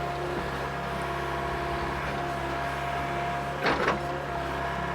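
Mini excavator's diesel engine running steadily at a constant speed, with a short, louder, higher-pitched sound about four seconds in.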